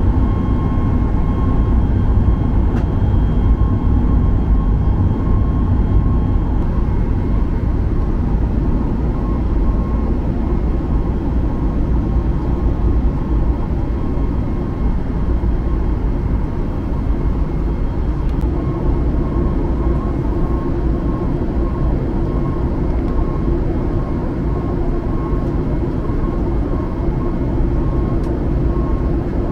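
Steady jet cabin roar inside a Boeing 737 MAX 8 in flight, from its CFM LEAP-1B turbofan engines and the airflow, with a faint steady high whine running through it.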